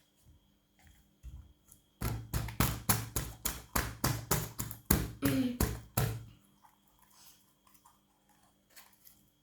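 Slime being worked out of its container by hand: a quick run of soft taps and squishes, about five a second, lasting about four seconds and then stopping.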